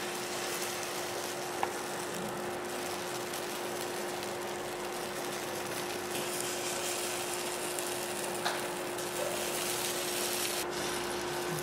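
Hash browns frying in oil in a pan: a steady sizzle with a steady low hum under it and two faint clicks.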